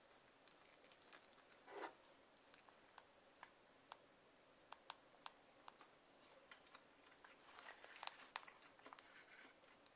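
Quiet eating sounds: wooden chopsticks clicking and picking at grilled eel and rice in a disposable bowl, with soft chewing. Small sharp clicks are scattered throughout, with a slightly louder moment about two seconds in and a cluster of clicks near the end.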